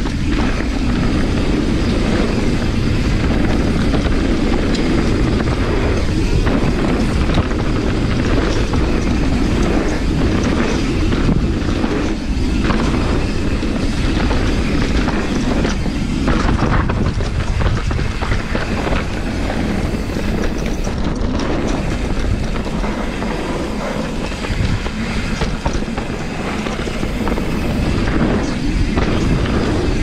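Mountain bike riding down a dirt trail: a loud, steady rumble of tyres rolling over the ground, with the bike rattling and knocking over bumps.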